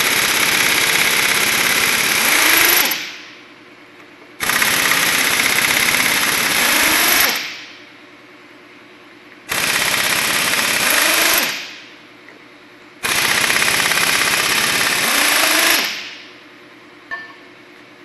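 Pneumatic impact wrench hammering bolts loose at the flywheel end of a Caterpillar 1693 engine, in four bursts of two to three seconds, each trailing off as the trigger is let go. A short knock near the end.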